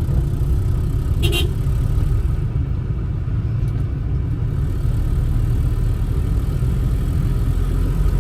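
Steady low rumble of a Honda City's engine and road noise heard from inside the car while driving, with one brief click about a second in.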